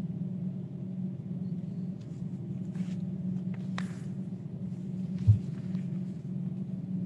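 Steady low hum of a microphone's background noise, with a few faint rustles about three to four seconds in and a single low thump just past five seconds.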